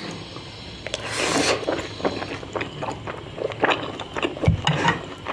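Close-up eating sounds: food being chewed and crunched in a run of irregular short clicks and scrapes, with a soft low bump about four and a half seconds in.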